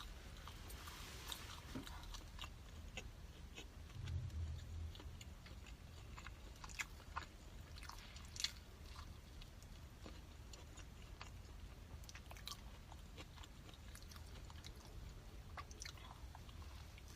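A person chewing food, with scattered small mouth clicks and smacks throughout; a short low bump about four seconds in.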